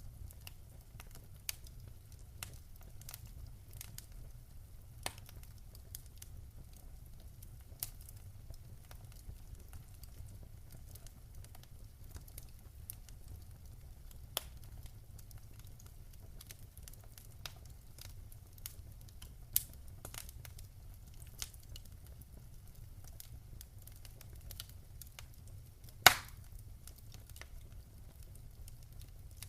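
Wood fire crackling: scattered sharp snaps and ticks over a low steady rumble, with one much louder pop near the end.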